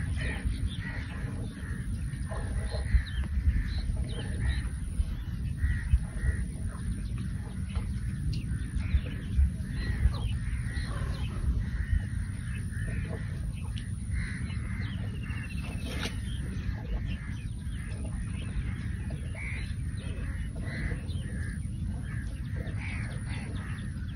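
Birds calling over open farmland, with crows cawing now and then, against a constant low rumble of wind on the microphone.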